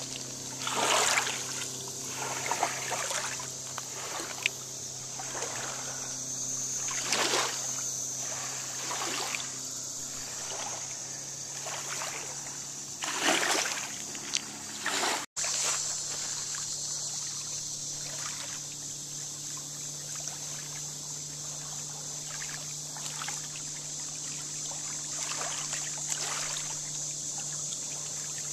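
Lake water lapping and splashing at a pebbly shore, in short swells every second or two, more often in the first half, over a steady low hum and a steady high hiss.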